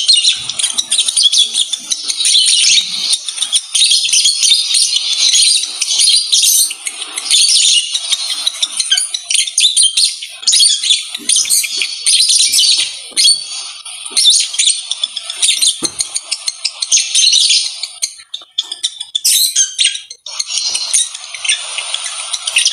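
Lovebirds chattering: a rapid, nearly unbroken stream of shrill chirps and squeaks, thinning briefly about three-quarters of the way through. This is the chatter of lovebirds in mating condition.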